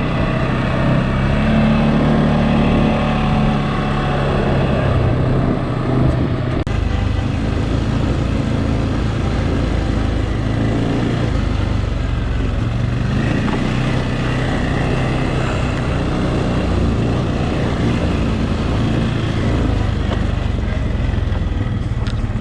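CFMOTO ATV engine running under way, its pitch rising and falling a little with the throttle.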